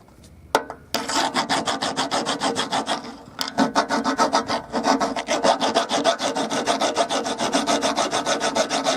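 Metal being shaved off a lawnmower's roller-height slot with a tool: a fast, continuous rasping scrape starting about a second in, with a short dip near 3 s before it resumes.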